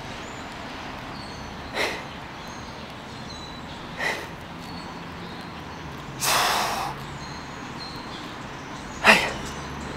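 A man's sharp exhalations in rhythm with exercise reps, four breaths about two to three seconds apart, the third longer and more forceful, over a steady background hum.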